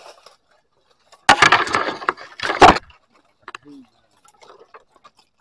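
A loud crackling, rustling burst of leaves and branches, packed with sharp snaps, lasting about a second and a half. A few scattered clicks follow.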